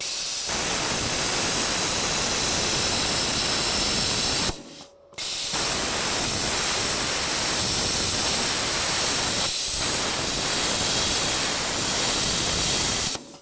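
ESAB Cutmaster 70+ plasma cutter with a gouging nozzle, gouging a metal plate: the plasma arc and air give a loud, steady hiss. It runs in two passes, one of about four and a half seconds, then after a half-second break a longer one that stops just before the end.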